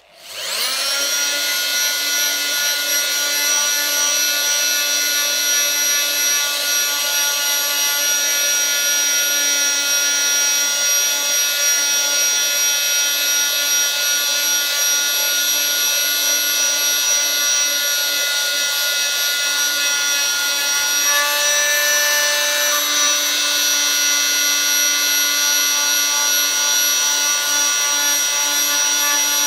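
Oscillating multi-tool with a triangular sanding pad starting up and running steadily with a high whine, sanding dried adhesive and skim-coat plaster off a steel putty knife blade. Its tone changes a little about two-thirds of the way through.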